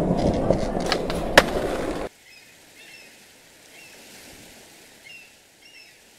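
Skateboard wheels rolling on a hard floor, with a couple of sharp clacks, cutting off suddenly about two seconds in. After that only a faint background with a few short, high chirps.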